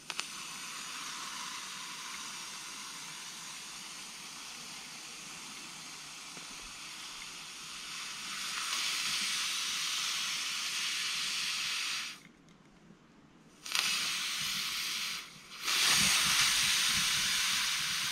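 Steam hissing out of a pressurised 12-volt portable electric water boiler as its lid is opened, releasing the pressure built up inside. A steady hiss grows louder about eight seconds in, stops twice briefly near the end, and comes back loudest.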